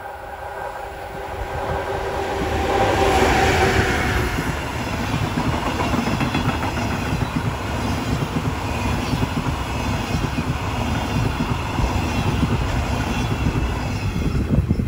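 ED75 AC electric locomotive approaching and passing close by with a steady whine of several tones, growing louder over the first three seconds. The whine drops away about four seconds in, and the train's wagons rumble past with wheels clattering over the rail joints.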